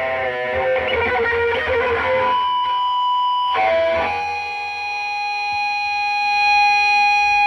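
Electric guitar through an amplifier: a few quick changing notes, then from about four seconds in a single note left ringing steadily.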